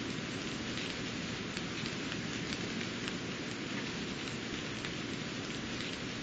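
Steady rain falling on garden foliage: an even hiss dotted with the small ticks of single drops striking leaves and petals.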